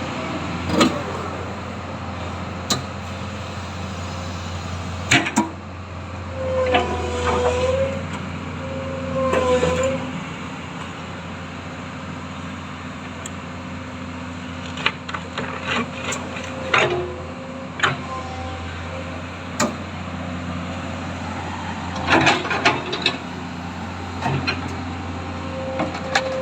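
Komatsu PC200 excavator's diesel engine running steadily, with a whining tone that dips and recovers twice and scattered sharp metallic knocks.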